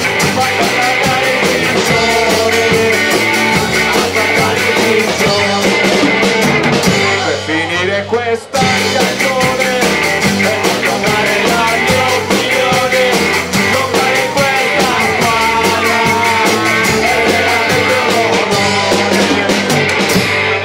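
Live rock band playing: drum kit, electric and acoustic guitars, bass and singing. The band drops out for a brief break about eight seconds in, then comes back in at full level.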